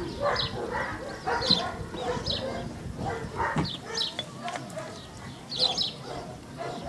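Dogs barking in the background, several short barks spread through the moment, with small birds chirping high and brief in between.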